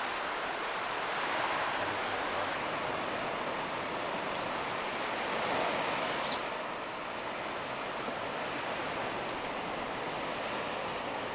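Steady outdoor background hiss, with a few faint light ticks.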